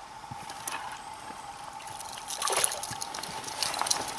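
Water splashing and trickling in a run of short, sharp splashes that thicken in the second half, the loudest about two and a half seconds in: a hooked crucian carp being brought to the surface beside the boat.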